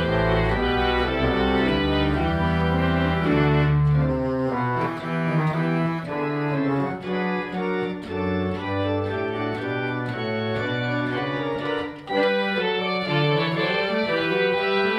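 1882 Hill pipe organ playing slow held chords, heard before its restoration, with a deep bass that drops out about four and a half seconds in.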